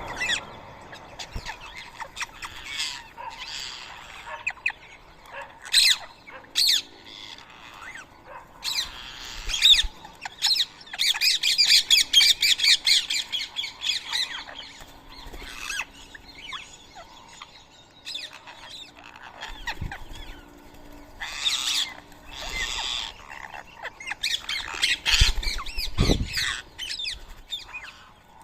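Rose-ringed parakeets squawking in bursts, with a dense run of rapid, chattering calls a little before the middle.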